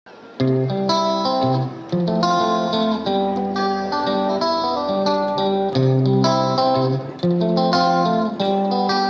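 Instrumental background music: a plucked guitar melody over sustained bass notes, starting abruptly about half a second in.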